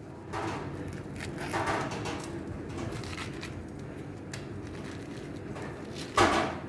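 Fingers scraping soft bael fruit pulp out of its hard, woody shell, a string of soft scrapes and rustles, with one louder brief scrape near the end.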